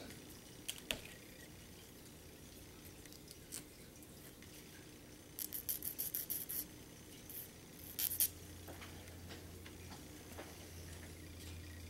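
Nail file rasping across the end of a thin wooden stringer to square it off: a quick run of short strokes, about eight a second, about five seconds in, then a couple more strokes near eight seconds.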